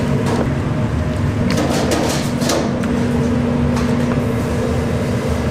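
A steady low machine hum with one constant tone in it, with light clicks and clinks scattered through it.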